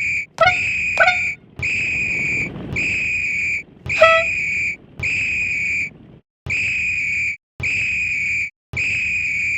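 A high, steady whistle sounding in about nine short blasts, each under a second, separated by brief gaps. Three quick sharp chirps cut in, twice in the first second and once about four seconds in.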